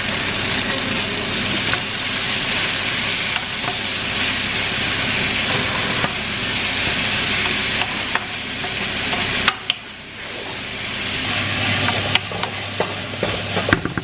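Food sizzling steadily as it fries in hot oil in a pan. The sizzle drops away briefly about nine and a half seconds in, then builds again, with a few sharp clicks of utensils near the end.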